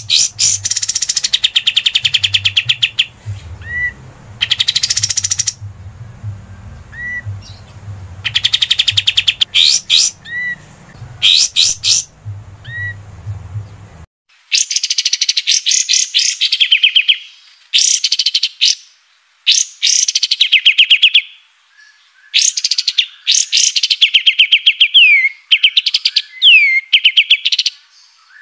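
Kapas tembak songbird singing: bursts of very rapid, high trilled notes about a second long, repeated with short gaps, with a few short single whistled notes between them. A low background hum under the song stops abruptly about halfway through.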